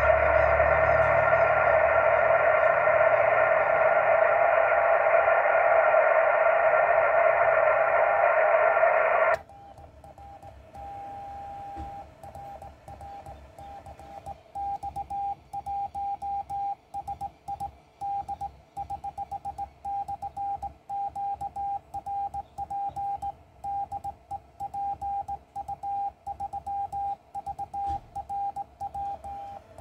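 Yaesu transceiver's speaker hissing with receiver band noise on 40 metres, cutting off abruptly about nine seconds in. After that, a single steady mid-pitched CW sidetone beeps out Morse code as a straight key is worked, dots and dashes at a hand-sent rhythm.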